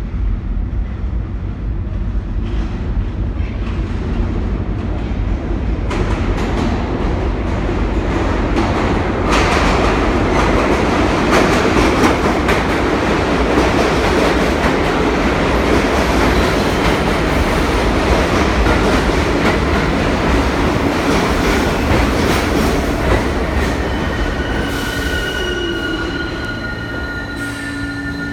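New York City subway train running through an underground station: a rumble of wheels on rail that grows loud about ten seconds in and holds, then eases, with several steady high-pitched squealing tones near the end.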